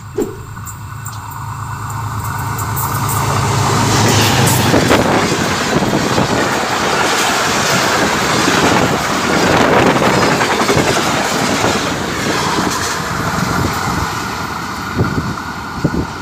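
A diesel-hauled Pakistan Railways express train passing close by. A steady low drone gives way, about four seconds in, to a loud rush of wheels and coaches on the rails, which slowly eases off as the train goes past.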